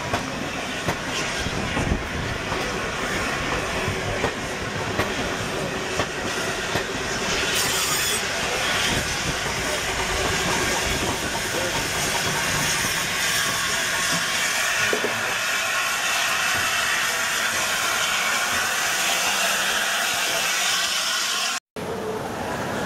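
Passenger coaches rolling slowly past, their wheels clicking over the rail joints, then a steam locomotive passing tender first with a steady hiss of steam. The sound breaks off abruptly near the end.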